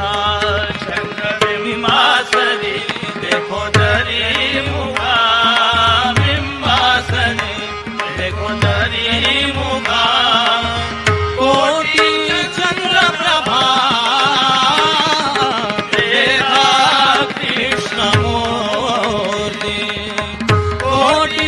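Marathi devotional gavlan music: tabla playing a steady rhythm under a winding melodic line held over a steady drone note.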